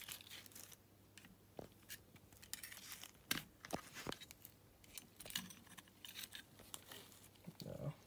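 Scattered light clicks and short scrapes of oily ATV clutch parts being handled, as a worn friction disc is worked loose and lifted out of the clutch basket.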